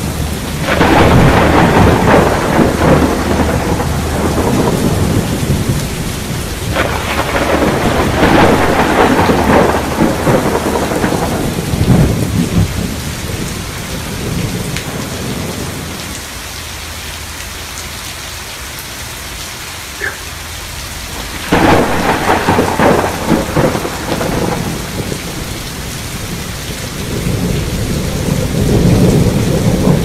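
Rain falling with repeated rolls of thunder, each swelling and fading over several seconds, with a quieter lull of steady rain midway.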